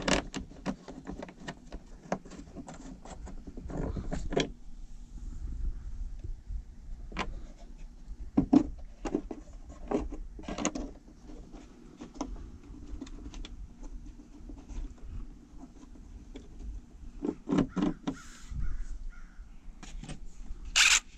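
Irregular clicks, knocks and light rattles of hands handling a car speaker, its cable connector and mounting screws while fitting it by hand, with a brief louder clatter near the end.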